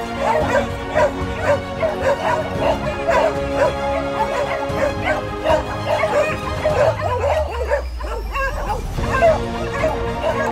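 A pack of beagles barking and yelping excitedly at a wild boar, many voices overlapping in a continuous chorus, with background music playing under it. The barking breaks off for a second or two about seven seconds in, then resumes.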